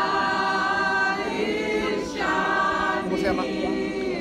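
A group of people singing together without accompaniment, in long held notes, with a brief break about two seconds in.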